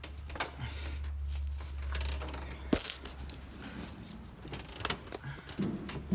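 Hands fitting an electrical connector onto an oil pressure sensor in an engine bay: scattered plastic clicks and knocks, the sharpest about three seconds in, over a low hum that stops at that click.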